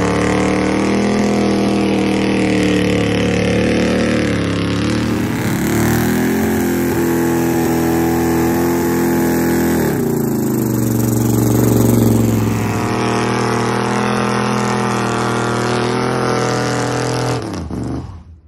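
1971 Dodge Charger's 400 cubic-inch big-block V8 held at high revs during burnouts, its pitch rising and falling, in several short clips cut one after another. The sound drops away near the end.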